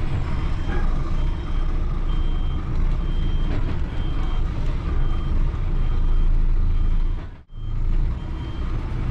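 DAF XF lorry engine running while the truck is rocked back and forward to free a stuck sliding extendable container trailer, with the reversing alarm beeping just under once a second. The sound drops out briefly near the end.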